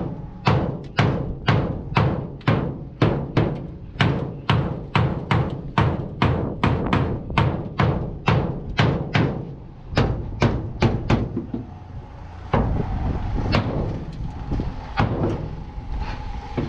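Hammer blows on the damaged truck cab's sheet metal: a steady run of about two knocks a second. After about twelve seconds the blows turn slower and irregular, with a faint metallic ring.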